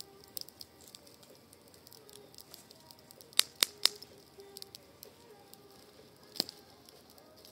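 Wood campfire crackling with steady small snaps. Three loud sharp pops come in quick succession midway, and another follows later.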